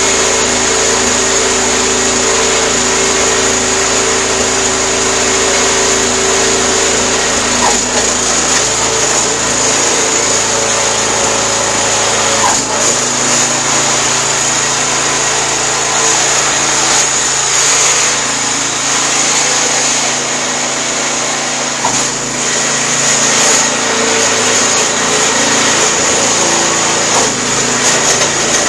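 Walk-behind lawn aerator's Predator gas engine running steadily under load as the machine is driven about on its belt drive. The engine note shifts a few times. This is a test run to see whether the loose, slipping drive belt now holds.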